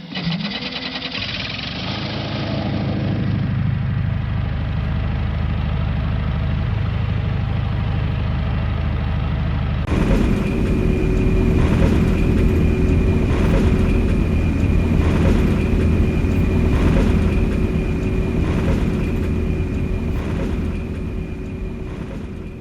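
Designed industrial ambience drones: a dense, low, engine-like rumble, then about ten seconds in an abrupt switch to a metallic texture with two steady tones and a regular pulse about once a second, easing down near the end.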